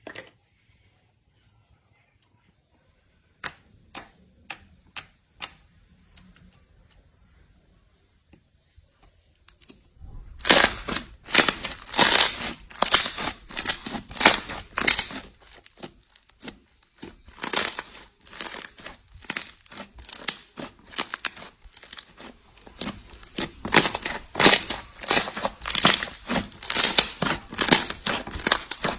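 Slime being squeezed and worked by hand, popping and crackling. A few scattered pops come early, then from about ten seconds in a dense, loud run of crackles and pops sets in.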